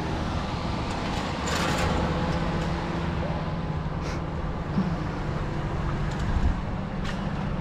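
A motor vehicle engine running steadily with a low hum, with a swell of road noise about a second and a half in and a couple of faint clicks.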